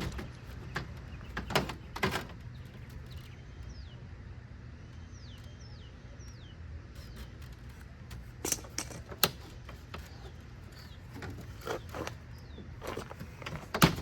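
Scattered clicks and knocks of tools and plastic car parts being handled, with a few sharper ones about two thirds of the way through and one near the end, over a steady low hum. Faint birds chirp in short, falling calls in the middle.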